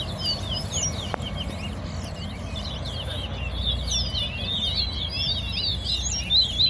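Caged towa towa finches singing a rapid run of high, twittering chirps that crowd together more in the second half, over a low background rumble.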